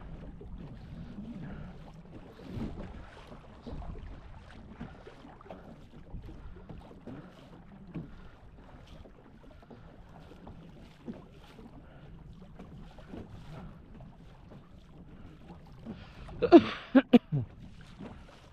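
Quiet water and wind noise around a small canoe, with faint scattered knocks. Near the end, a short loud run of three or four coughs from the angler.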